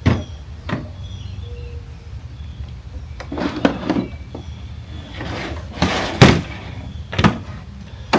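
A series of sharp knocks and clunks from hard objects being handled, with a brief scraping rustle about five seconds in.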